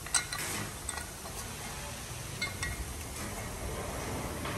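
Light metallic clinks of steel bucket tappets being handled and dropped into their bores in an aluminium cylinder head: one sharp clink just after the start, then a few soft taps.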